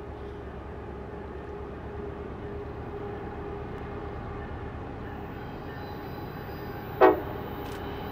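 Union Pacific SD70AH-T4 diesel locomotive pulling a passenger special, a steady low rumble heard from a distance. About seven seconds in there is one short, sharp, loud sound.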